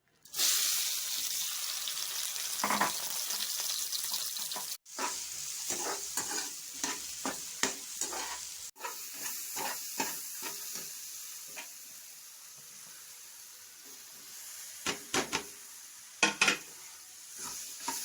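Food frying in hot ghee in a pan and being stirred with a spatula: a sizzle that starts suddenly just after the start and gets quieter later, with repeated scraping strokes of the spatula against the pan. The sound breaks off briefly twice.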